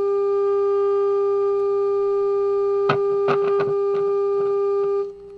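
Steady test tone from the RCA 66X1 radio's speaker: the signal generator's modulated 9.5 MHz signal, picked up on the shortwave band during alignment while trimmer C20 is adjusted to peak it. A few sharp clicks come about three seconds in, and the tone drops away suddenly near the end.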